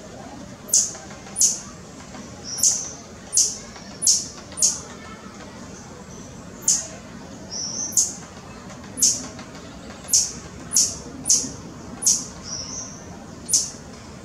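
White-barred piculet calling: a series of very short, sharp, high-pitched notes that slur downward, given at irregular intervals about a second apart, with a few softer notes between them.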